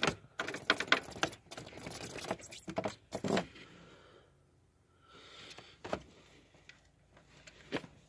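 Irregular metallic clicking and rattling of hand tools for about three and a half seconds, then a few scattered single clicks.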